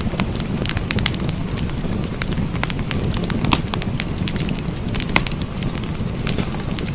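Wood fire crackling, with irregular sharp pops over a steady low rush of burning; two louder pops come about three and a half and five seconds in.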